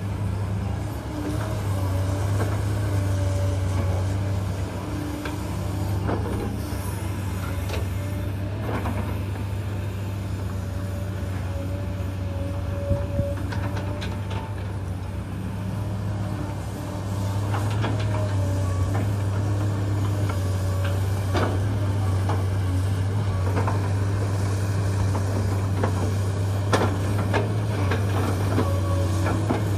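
Hydraulic excavator's diesel engine running steadily under load, louder from a little past halfway, with occasional sharp knocks.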